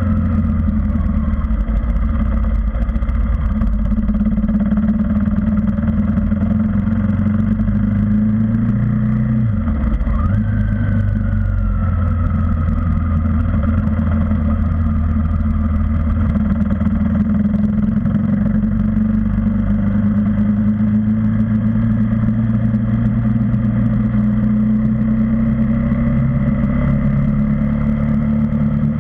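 KTM Duke 390 single-cylinder motorcycle engine running under way, heard from the bike itself. About ten seconds in the engine note drops briefly and climbs back, then rises slowly later on.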